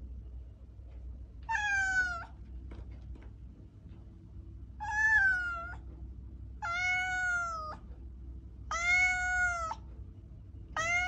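A cat meowing: four separate meows, each about a second long and a second or two apart, with a fifth beginning right at the end.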